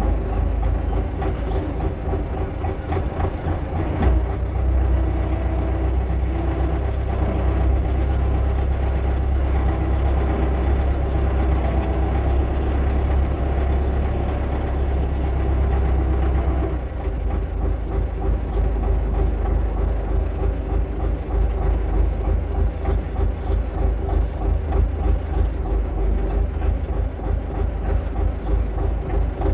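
Tractor engine running steadily with a deep low drone. About 17 seconds in, the drone drops and the running turns into a rapid, uneven pulsing.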